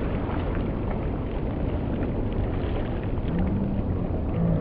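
Steady rushing outdoor noise with a low rumble underneath.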